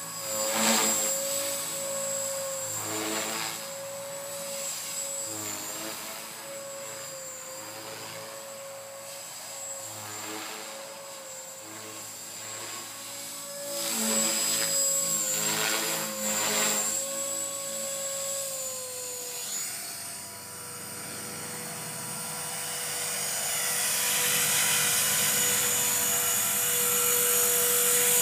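Blade 450X electric RC helicopter in flight: a steady motor and rotor whine, swelling a few times into a louder whoosh of the rotor blades, and growing louder near the end as it comes in close.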